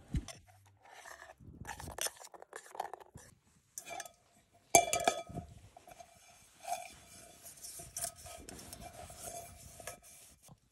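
Metal items being handled and scraped against each other, with scattered clinks and a sharp knock a little before halfway. A steady metallic ringing tone starts about a third of the way in and lasts to the end.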